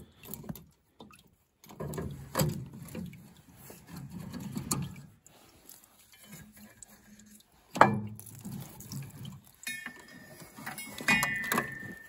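Clunks, rustling and scraping as hands work a tractor's cab heater and its hoses loose, with one sharp knock about eight seconds in and a short squeak near the end.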